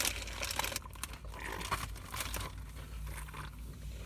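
Scattered light crackles of a crunchy Cheetos snack bag being handled and chips being crunched.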